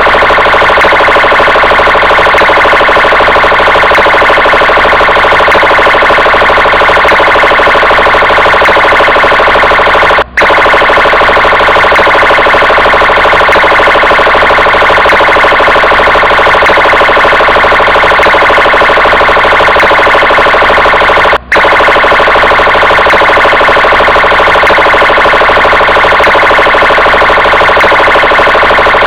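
Police car siren sounding loudly and continuously, cutting out for a split second twice, about ten and twenty-one seconds in.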